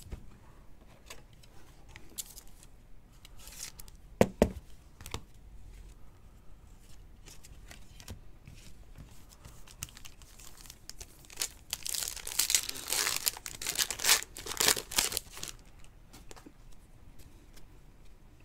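A trading-card pack's plastic wrapper being torn open and crinkled in a bout of crackling lasting about four seconds in the second half. It follows a sharp double click about four seconds in.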